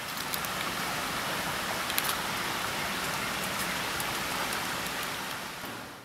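Shallow rocky creek rushing steadily over a small cascade, with a few brief ticks. It fades out at the end.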